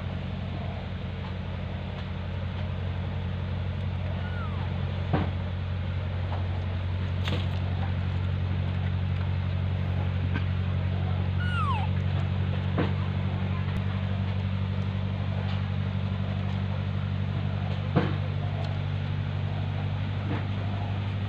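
Two short, falling squeaky calls from a baby macaque about four and eleven seconds in, over a steady low hum, with several sharp knocks scattered through.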